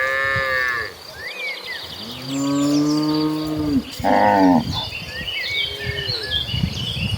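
Cattle mooing in turn: a short high-pitched call at the start, a long low moo about two seconds in, a brief moo right after it, and a fainter one near the end.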